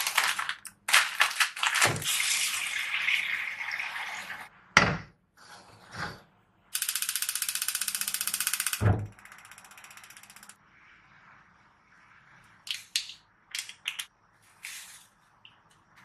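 A plastic instant-noodle packet snipped with scissors and crinkling, with a couple of knocks. Then a gas hob's igniter ticks rapidly for about two seconds and ends in a low thump as the burner catches. A few light clicks follow near the end.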